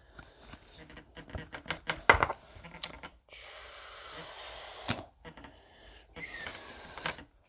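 Trading cards being handled: a run of light clicks and taps with one sharper knock about two seconds in, followed by two stretches of soft rustling.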